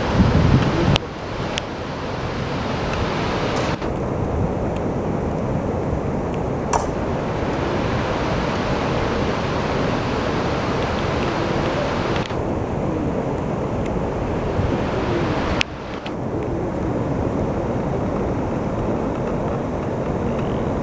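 Duduma Waterfall's heavy rainy-season flow making a steady, loud rush of falling water. Wind buffets the microphone in the first second. The sound's character shifts abruptly a few times.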